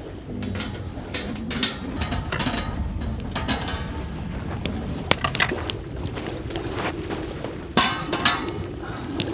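Camp cookware and utensils being handled, giving a scatter of sharp clinks and knocks, the loudest about one and a half seconds in and near the end, over a steady low background noise.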